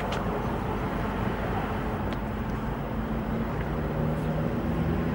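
Steady outdoor road ambience: traffic noise, with a vehicle engine hum coming up in the second half.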